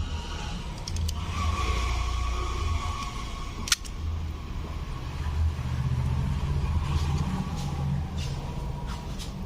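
Small plastic parts of a car seat switch being pressed together, with one sharp snap about four seconds in and a few fainter clicks, over a steady low hum.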